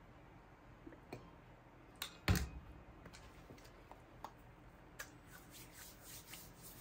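Light clicks and taps from handling a plastic body-oil bottle, with one louder knock a little over two seconds in, then faint rubbing of lotion and oil between the palms and onto the skin.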